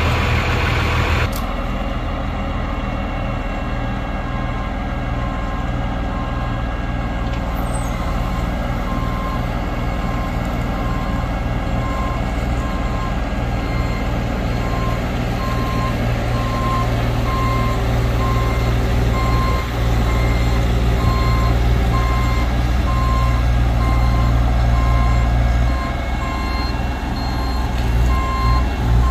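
A 2007 Peterbilt 335 rollback truck's Cummins ISC 300 six-cylinder diesel runs steadily. From about nine seconds in, a back-up alarm beeps about once a second.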